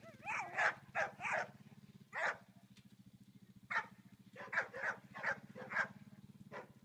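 A dog barking repeatedly in short, sharp barks, some coming in quick runs of three or four, over a steady low hum.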